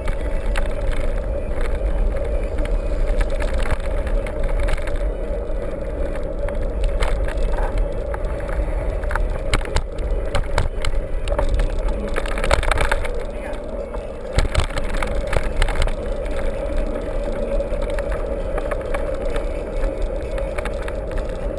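Mountain bike being ridden over rough ground: steady wind rumble on the microphone with frequent rattles and knocks from the bike.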